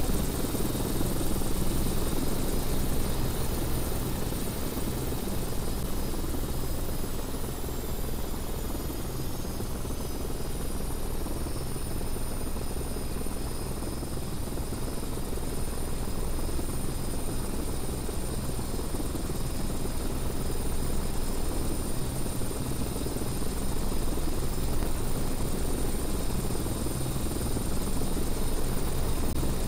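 Distant Airbus A330-343 airliner's Rolls-Royce Trent 700 turbofans running as it rolls along the runway: a steady low rumble with thin high whines, one of which falls in pitch about a third of the way in.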